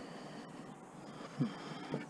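Gloved hands picking up a rear-projection TV lens assembly: a soft knock about a second and a half in and another small one near the end, over faint background hiss.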